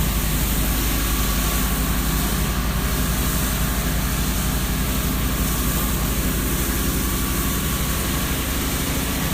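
Pressure washer's engine running steadily, with a constant hiss of water spraying.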